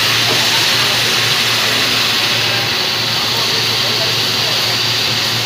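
Steady factory machinery noise from an automated flywheel ring-gear production line: a loud, even hiss over a low hum, with no distinct knocks or strokes.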